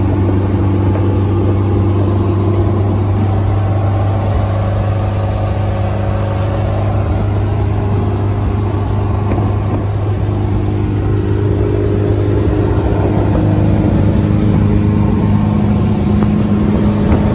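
Air-cooled Volkswagen flat-four engine of a Meyers Manx Resorter dune buggy running while driving, heard from the open driver's seat. The engine note is steady, with a slight change in pitch about ten seconds in.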